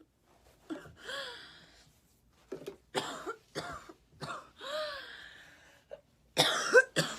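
A woman sick with a cold coughing in a series of short, separate coughs, the loudest near the end.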